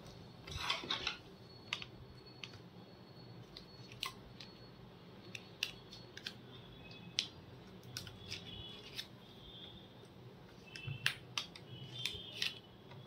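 Scattered small clicks and taps of metal tweezers and plastic connectors as cables and the Wi-Fi card are fitted inside an opened laptop, with a short rustle near the start.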